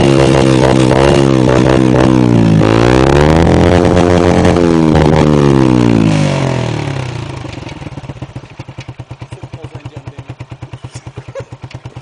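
Motorcycle running through a switchable aftermarket exhaust (quiet for town, loud for open road), revved up and down several times, loud. About six seconds in it drops back to a much quieter idle with a steady, even pulse.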